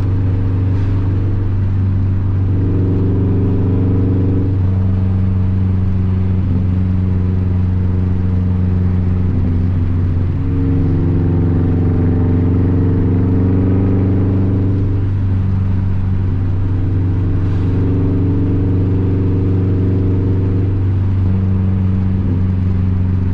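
2004 Subaru WRX STI's rebuilt 2.5-litre turbocharged flat-four, through a loud Crawford Gymkhana cat-back exhaust, running at a steady cruise with a continuous low drone. The tone shifts slightly every few seconds with small throttle changes, without hard revving.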